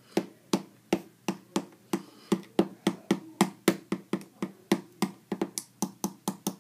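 Points of a pair of scissors tapping hard and repeatedly onto a phone's Tech Armor HD screen protector, a run of sharp clicks about three a second. The points are jabbed down with pressure to scratch the protector.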